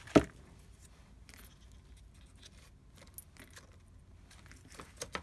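A single sharp knock just after the start, then faint rustling and a few small clicks as cut paper and cardboard pieces are handled and laid on a tabletop.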